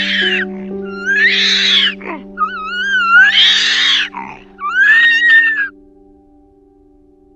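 Loud animal calls, about five in a row, each under a second long and rising then falling in pitch, over steady background music. The calls stop a little over halfway through and the music fades low.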